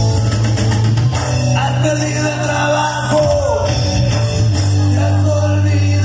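Rock music with a singing voice and a steady bass line, played loud through a sonido (party sound system).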